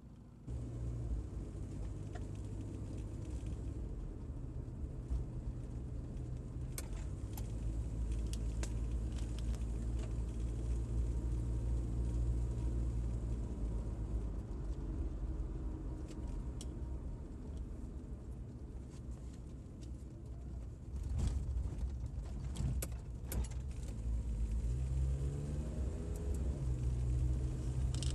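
Car engine running while driving, heard from inside the cabin as a steady low hum with light clicks and rattles now and then. Near the end the engine note rises as the car speeds up.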